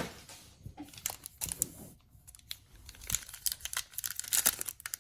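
Trading-card pack wrappers crinkling and tearing as packs of football cards are handled and ripped open, a quick series of crackles that gets busier in the second half.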